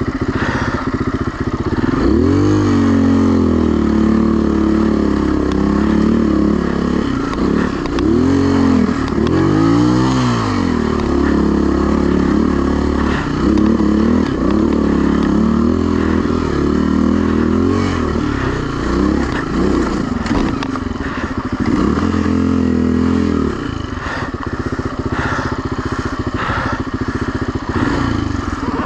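Enduro motorcycle engine revving up and down again and again, as on a rough climb, with scattered knocks. The revs fall lower for the last few seconds.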